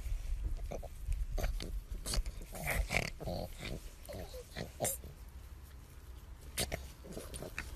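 Pug making short, irregular pig-like grunts while being rubbed on the belly in play.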